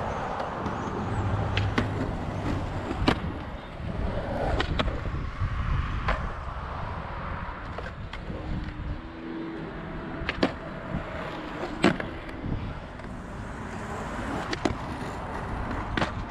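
Skateboard wheels rolling over concrete with a steady rumble, broken by about seven sharp clacks of boards popping and landing on the concrete pad and ledges.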